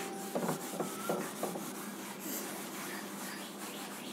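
Board duster wiping marker writing off a whiteboard: a few quick separate strokes, then steadier rubbing.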